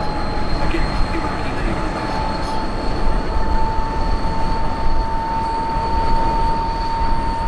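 Helicopter in flight: steady turbine and rotor noise over a low rumble, with a high, steady whine whose pitch creeps slowly upward.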